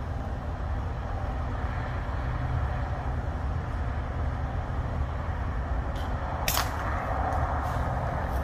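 A single sharp shot from a .22 Brocock Atomic XR PCP air rifle about six and a half seconds in, with a faint click just before it. A steady low background rumble runs underneath.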